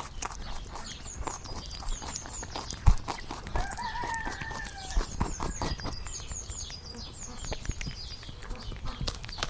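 A rooster crowing once, a call of about a second and a half starting three and a half seconds in, with short high chirps repeating and scattered clicks and knocks throughout.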